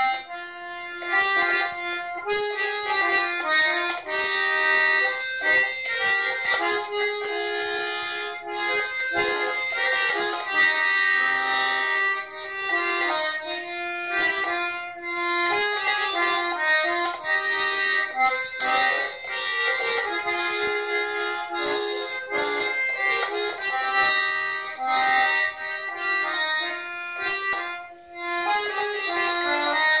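Bayan (Russian button accordion) playing a tune, a melody over held chords with a few brief breaks between phrases, heard through a Skype video call with the top end cut off.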